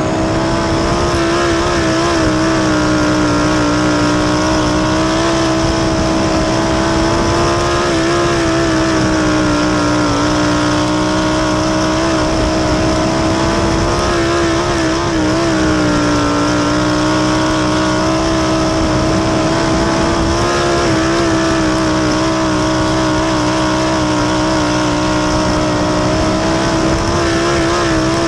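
Winged dirt sprint car's V8 engine running hard at racing speed, heard from the cockpit. The note stays high and steady, dipping slightly in pitch every several seconds.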